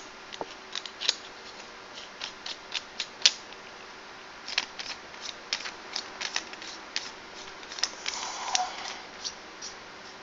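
Metal vape mod tubes being screwed together by hand: an irregular run of small, sharp metallic clicks and ticks from the fine threads, with a brief metallic ring about eight seconds in.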